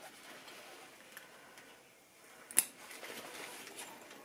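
Faint handling noise from a fabric tote bag being turned over, with one sharp click about two and a half seconds in.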